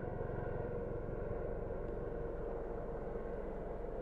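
Helicopter flying past low overhead: a rapid low rotor beat under a steady turbine whine.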